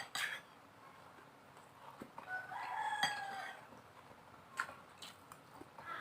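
A rooster crowing once, about two seconds in, lasting about a second and a half. A few short clicks, one near the start and one about four and a half seconds in.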